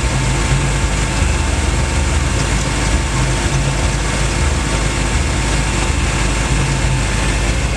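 A vehicle engine idling, a steady low running noise with no changes.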